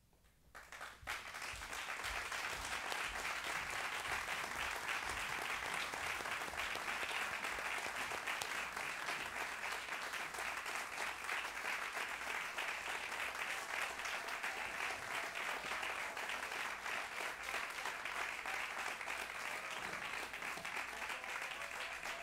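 Theatre audience applauding, starting suddenly about a second in after near silence and holding steady as a dense, continuous clapping.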